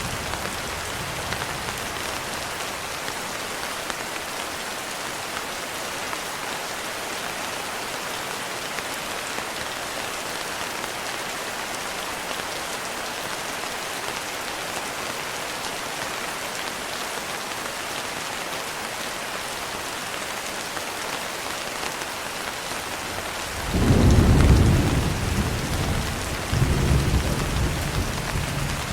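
Steady rain falling. Near the end, thunder breaks in with a sudden low rumble that fades over about two seconds, then rumbles again.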